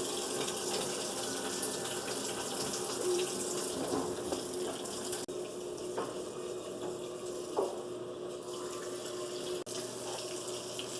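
GE washing machine filling its tub with water at the start of a wash load: a steady rush of running water with a steady low hum underneath, through the newly replaced water valve.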